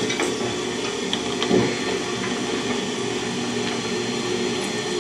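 Industrial sewing machine running with a steady motor hum, with one brief knock about one and a half seconds in.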